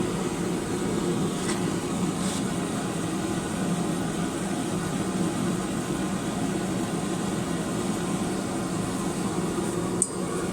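A blacksmith's forge running with a steady, even rushing noise while a workpiece heats. A few faint ticks sound early on, and a sharper click comes near the end.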